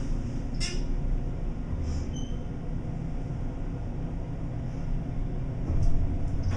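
Steady low rumble of an elevator car travelling with its cab fan running loud, with a brief high beep about two seconds in.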